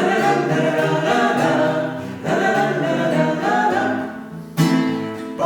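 A man and a woman singing together in a Russian bard song, in phrases with a short break about two seconds in and a new phrase starting near the end.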